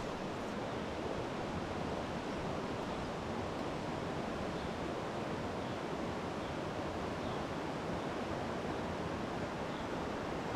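Steady rush of a fast-flowing, rippling trout stream: an even wash of running water.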